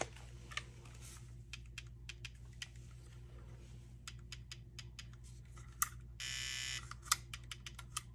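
Light clicks and taps of plastic and metal as an airsoft rifle's lower receiver and stock are handled on a workbench. A short buzz, under a second long, comes about six seconds in. A low steady hum runs underneath.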